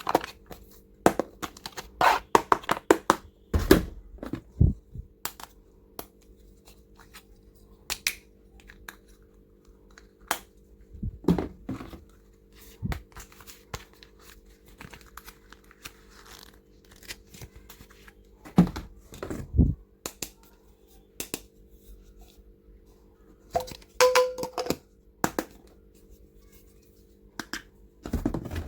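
Stationery and toy items being handled: irregular clicks and taps with brief bursts of tearing and crinkling, as of packaging, over a faint steady hum.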